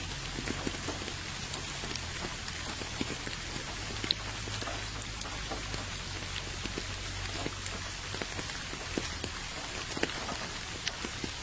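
Steady rain falling into a puddle and onto wet ground: a constant hiss with many separate drop splashes landing at irregular moments.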